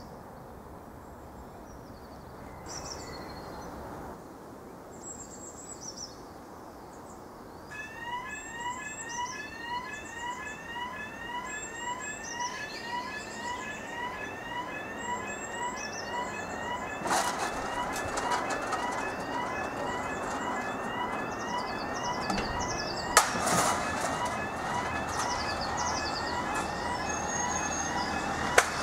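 Railway level crossing warning alarm sounding: a short rising yelp repeated about twice a second, starting about eight seconds in. It gets louder later on, with a couple of sharp knocks near the end.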